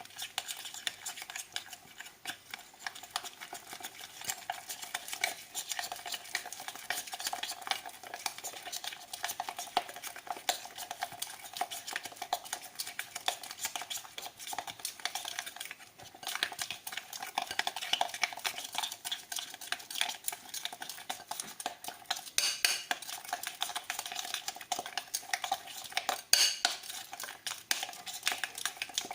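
A utensil stirring a thick bread batter in a bowl: rapid, steady clinking and scraping against the bowl, with a brief pause about halfway through.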